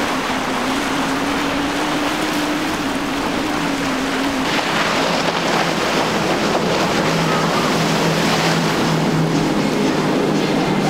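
Outboard motors of a center-console boat running at speed, a steady engine drone over the rushing hiss of spray and waves off the hull. The engine note drops lower about four and a half seconds in.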